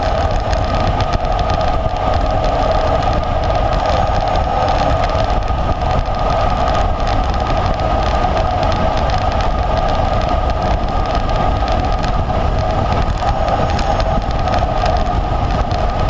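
Steady rush of wind over a bike-mounted camera's microphone while riding a road bike, a constant rumbling hiss.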